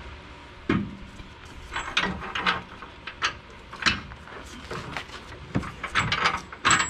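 Irregular clicks and knocks of metal parts and tools being handled under a pickup truck while a new rack and pinion is fitted to the frame.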